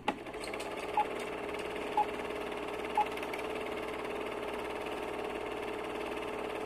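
Three short electronic beeps, one a second, over a faint steady hum.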